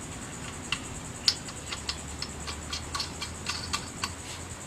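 Light metallic clicking, irregular at about three or four clicks a second, as a lug nut is threaded onto a wheel stud of the spare wheel, over a faint low hum.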